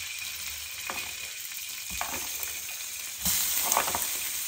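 Diced chicken breast pieces being placed into hot olive oil in a frying pan, sizzling steadily, with a few light knocks. The sizzle grows louder about three seconds in as more pieces go into the oil.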